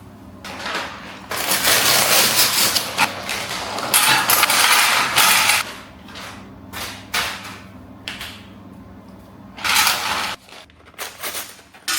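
Packaging being handled: rustling and crinkling in one long noisy stretch and several shorter ones, over a steady low hum.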